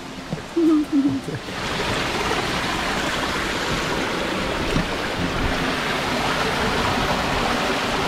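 Small waterfall splashing down a rock cleft, a steady rush of falling water that comes in suddenly about a second and a half in, after a few brief voice sounds.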